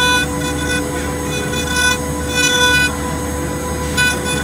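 CNC engraving machine's spindle milling brass with a small end mill: a steady machine whine under a cutting tone. The sharper ringing tone swells and fades irregularly as the cutter bites into the metal.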